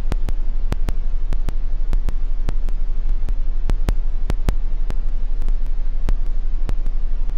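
Steady low hum under an even hiss, with sharp irregular crackling clicks several times a second.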